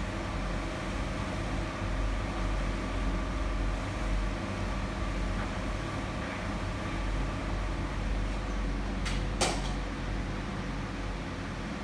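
Steady low rumbling noise with a faint hum running through it, and a single sharp click about nine and a half seconds in.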